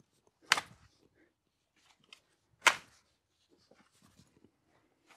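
Spade being driven into a mulched raised bed to dig out an old grapevine's roots: two sharp strikes about two seconds apart, with faint scraping and crackling of soil and roots between.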